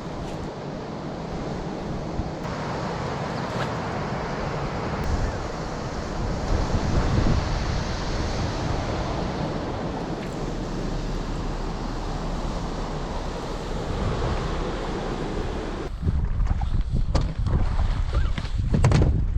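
Steady rushing wind on the microphone, gusting harder in the last few seconds.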